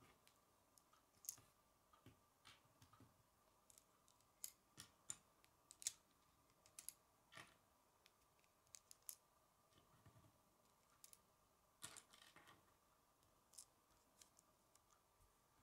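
Plastic K'nex rods and connectors clicking and snapping as they are handled and pressed together: faint, irregular clicks a few times a second.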